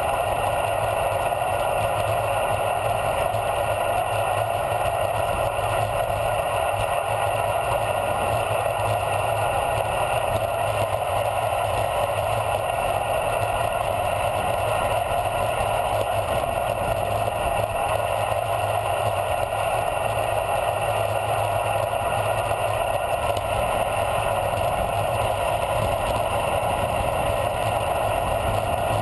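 Steady rush of wind over a bike-mounted camera, mixed with tyre noise on asphalt, as a bicycle coasts fast downhill.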